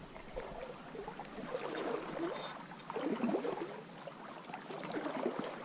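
Small creek's water gurgling and trickling, with an uneven, bubbling flow.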